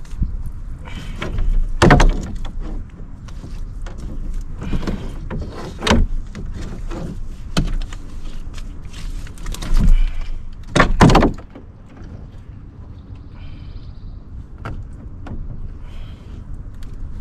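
Irregular knocks and thumps against a canoe's hull and floor as a bass is handled out of a landing net and unhooked; the loudest come about two, six, ten and eleven seconds in, and after that it goes quieter.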